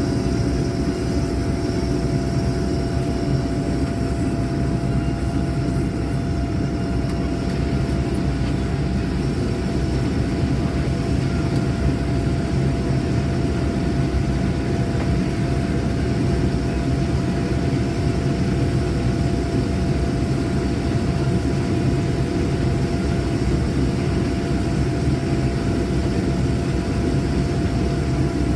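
Case IH 2588 combine running steadily while harvesting corn: a constant heavy engine and machinery drone with a thin, steady whine over it.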